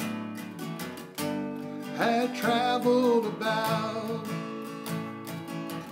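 Background music: strummed acoustic guitar with a singing voice coming in about two seconds in.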